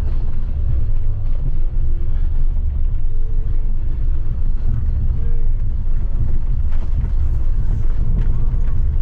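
Troller 4x4 driving on a dirt road: a steady low rumble of engine and tyre noise, mixed with wind buffeting the bonnet-mounted microphone.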